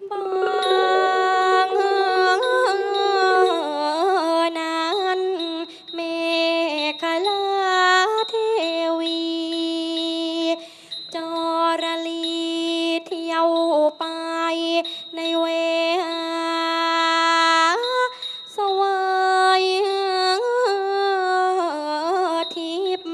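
A singer performing Thai classical vocal music, holding long notes with sliding, wavering ornaments between them.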